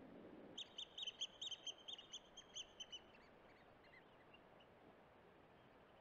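A wading bird calling: a quick series of about a dozen short, clear piping notes, roughly five a second, falling slightly in pitch and trailing off fainter after about two and a half seconds.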